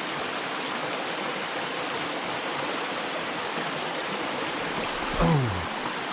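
Small mountain stream running steadily over rocks. About five seconds in, a brief sound falls sharply in pitch, louder than the water.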